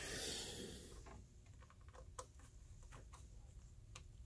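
Faint handling noise: a soft rushing that dies away within the first second, then scattered light clicks and taps from the metal amplifier chassis being shifted on a shelf.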